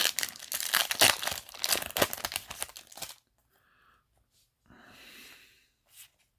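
Foil booster-pack wrapper crinkling and crackling as it is handled for about three seconds, then a soft, brief rustle of cards near the end.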